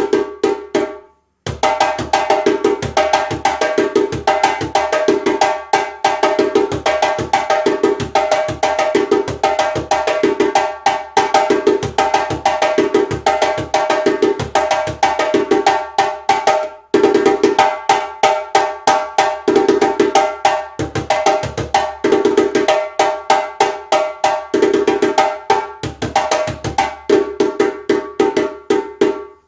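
Freshly reheaded djembe played solo: fast phrases of hand strokes, with ringing higher tones and deeper ones. The playing stops briefly about a second in and again about halfway through.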